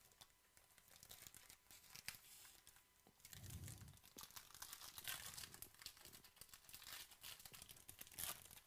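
Faint crinkling and tearing of a foil trading-card pack wrapper as it is handled and ripped open by hand. It goes in many short crackles, busiest in the middle, with a sharp crackle near the end.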